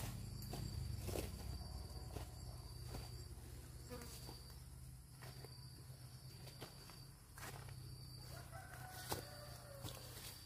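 Quiet rural outdoor ambience: a thin, high insect trill that comes and goes over a low steady hum, with a few faint clicks and brief faint animal calls near the end.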